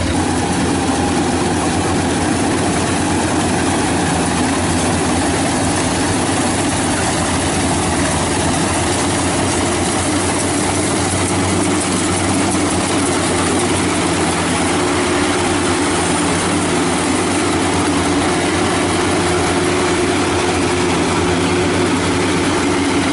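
Rice combine harvester (Yamah DC105 Plus) running steadily while it cuts rice, a constant engine drone with mechanical noise over it.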